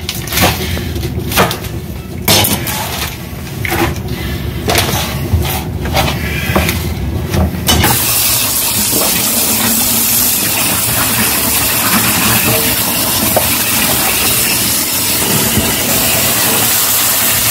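A kitchen knife knocking irregularly on a cutting board as a pile of spinach is cut. About eight seconds in, the tap opens, and water runs steadily from the faucet into a stainless steel sink, splashing over the spinach leaves as they are rinsed by hand.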